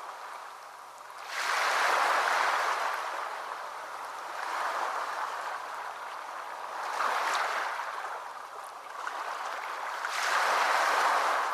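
Sea waves washing in, a rushing hiss that swells and ebbs. A big surge comes about a second in, smaller ones follow mid-way, and another big surge comes near the end.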